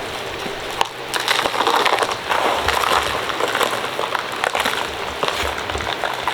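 Dried pottery clay being pounded and broken up, with dense crunching and crackling of the hard pieces and sharp clicks of fragments, busiest from about a second in to about halfway through.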